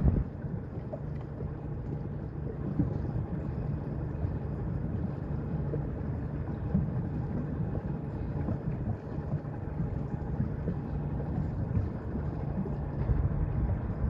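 Steady low wind rumble buffeting the microphone over the water, with water noise beneath it and no clear single events.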